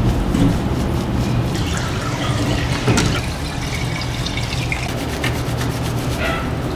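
Hands rubbing shampoo lather into a cat's wet fur, with water splashing and dripping in a plastic bathtub.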